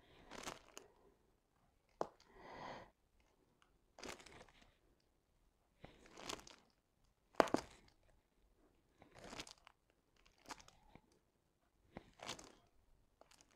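Faint plastic crinkling and rustling in short bursts every second or two, as the clear cover film over a diamond painting canvas is handled while resin drills are picked up with a wax pen and pressed into place.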